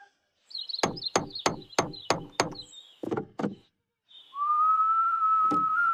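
Cartoon hammering: a quick series of about nine sharp knocks, roughly three a second. Then one long, steady whistled note with a single knock under it.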